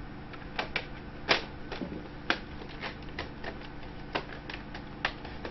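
Irregular sharp plastic clicks as the laptop's palm rest is pressed along its edge and its clips snap into the base, the loudest just over a second in.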